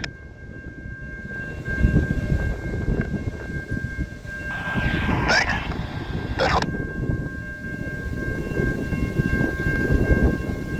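Railroad grade-crossing warning bell ringing steadily as the rear of a freight train clears the crossing, over a low rumble; the bell stops right at the end. A brief louder noise comes about halfway through.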